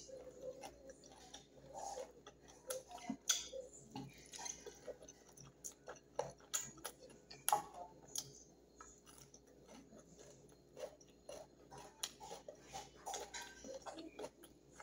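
A person chewing food with closed lips: a run of irregular small wet smacks and clicks, with a few sharper clicks among them.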